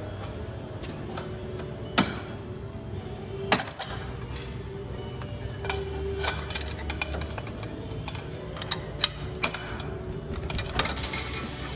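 Background music under a series of sharp metallic clinks and clicks from hand tools and metal parts, the loudest about 2 and 3.5 seconds in and a cluster near the end.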